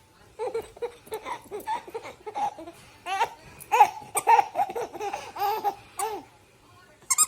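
A baby laughing in a long run of short, high-pitched bursts of giggles and belly laughs, stopping about six seconds in.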